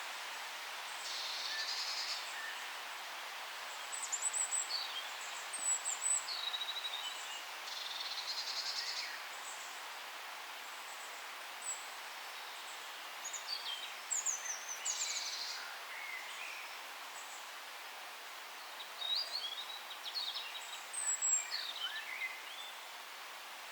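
Several forest songbirds call and sing over a steady soft hiss of background ambience. Short high chirps and whistled notes come and go, with a few buzzy trills.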